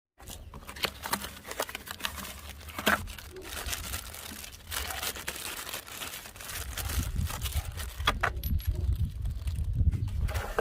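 Crinkling and rustling of plastic packaging being handled, with scattered sharp clicks and knocks. Underneath runs a low rumble that gets louder about two-thirds of the way in.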